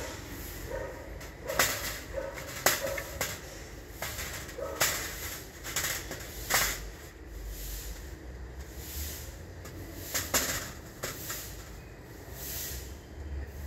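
Letter-shaped molds being set down and shifted by hand on a vacuum-forming machine's perforated platen: scattered light knocks and scrapes, with several sharper knocks spread through.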